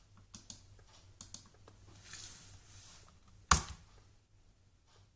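Computer keyboard clicks: a few light keystrokes in the first second and a half, then one sharp, much louder key click about three and a half seconds in.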